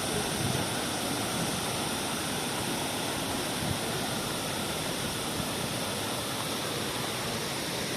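Steady rush of water falling at a waterfall, an even hiss with no pauses or changes.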